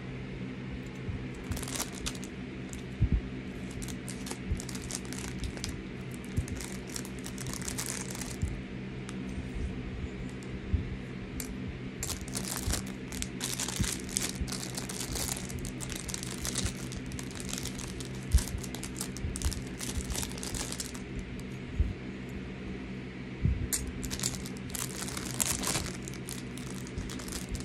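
Plastic packaging crinkling and rustling in repeated stretches as it is handled and pulled open, with a few sharp clicks and knocks of small hard objects being set down, over a steady low hum.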